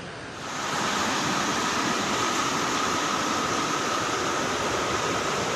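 Steady rushing noise of heavy rain and fast-flowing floodwater, which gets louder about half a second in and then holds even, with a faint steady whine under it.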